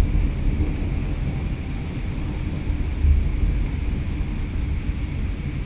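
Low, continuous rumble of a thunderstorm, with thunder and wind at the microphone blending together. It swells briefly about three seconds in.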